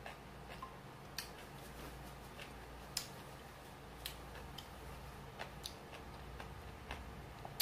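Faint eating sounds: about half a dozen soft, irregular clicks and smacks of chewing, with utensil contact at the glass bowls, over a low steady hum.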